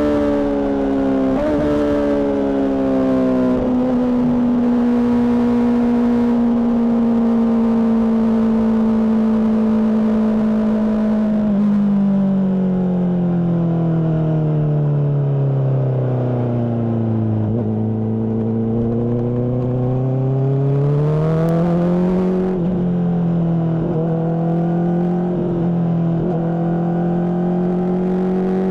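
Honda CBR600RR's inline-four engine, fitted with a Mivv exhaust, running under way. The revs hold high and steady, then fall away slowly for several seconds, climb again, and hold at a moderate pitch near the end.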